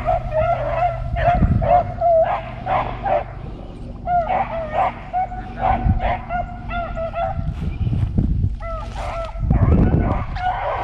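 A pack of beagles baying in repeated, overlapping calls while running a cottontail rabbit's track. Several brief low rumbles sit underneath, the loudest near the end.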